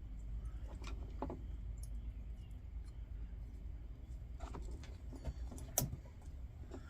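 Light scattered clicks and taps of small metal lantern parts being handled while the pump assembly goes back into the fount, the sharpest click a little before six seconds in, over a steady low hum.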